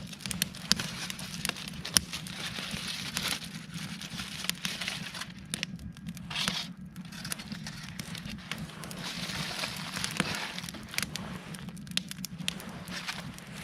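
Wood campfire crackling, with scattered sharp pops.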